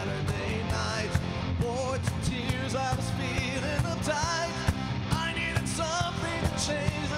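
Rock band playing live: electric guitars, bass and drums with a male lead singer singing over a steady beat.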